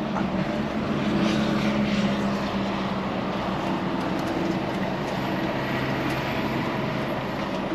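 Volvo FH 540 truck's diesel engine running steadily, a constant low drone with mechanical noise.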